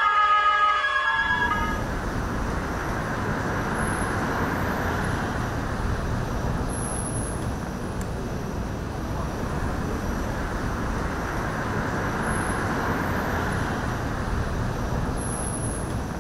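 Fire engine sirens wailing up and down over steady horn tones. About a second in they cut off abruptly, giving way to a steady rushing outdoor din with faint high whistles now and then.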